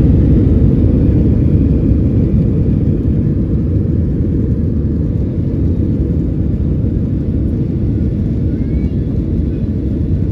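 Steady low rumble of an airliner's engines and airflow heard inside the passenger cabin, easing off slightly over the last few seconds.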